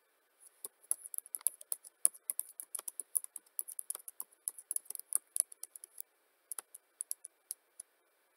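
Typing on a computer keyboard: a fast, uneven run of key clicks that thins out to a few scattered clicks over the last couple of seconds.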